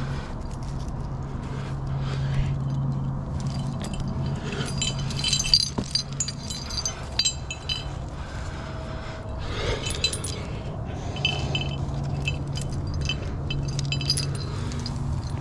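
Metal climbing gear on a harness, carabiners and quickdraws, jingling and clinking in irregular clusters as the climber moves.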